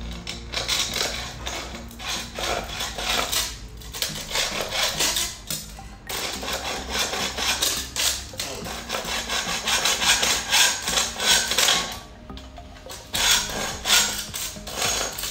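Hand hacksaw cutting through an aluminium angle strip: rasping back-and-forth strokes of the blade on the metal, with a few brief pauses.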